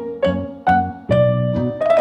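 Background music: a light, children's-style piano or keyboard tune with a bass line, about two struck notes a second.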